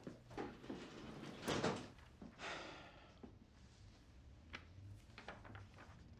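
An office door shutting with a thud about one and a half seconds in, among lighter knocks and rustles of people handling papers, with a few soft clicks near the end.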